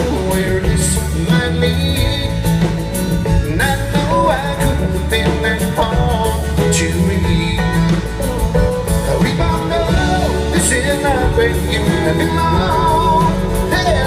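Live country-rock band playing through a big outdoor PA at a sound check: electric guitars and drums under a sung lead vocal.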